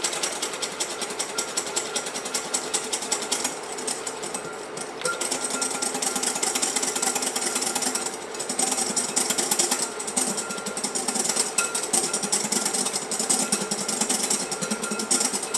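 Wire whisk beating fast against the sides of a glass mixing bowl: a rapid, steady clatter of strokes with two brief lulls. The eggs are being whisked hard as hot milk goes in, tempering them for pastry cream.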